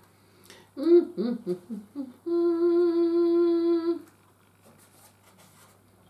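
A person humming with closed lips: a few short hums that glide up and down, then one long steady note held for nearly two seconds.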